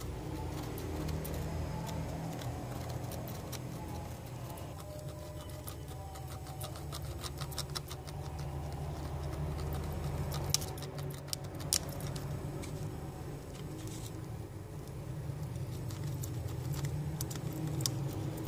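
Soldering iron tip working along the solder joints of a hard drive circuit board, making faint scratchy ticks and small clicks over a steady low hum, with two sharper clicks a little past the middle.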